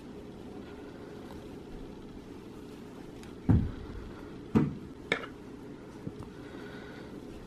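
Steady low background hum, with three sudden knocks about three and a half, four and a half and five seconds in, the first two the loudest.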